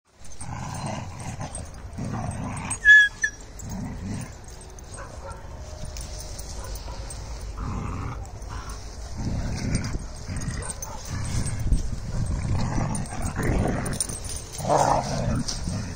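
Dogs fighting, with low growling and scuffling in repeated bursts, and one sharp, high-pitched yelp about three seconds in.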